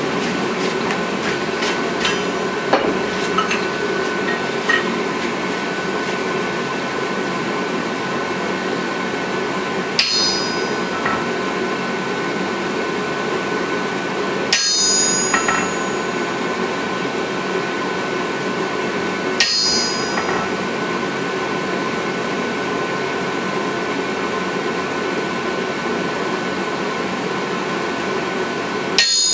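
Hammer blows on a hot cut top tool held on red-hot steel on an anvil, cutting the split between a claw hammer's claws. There are four heavy, ringing strikes several seconds apart and a few lighter knocks in the first seconds, over a steady rushing background noise.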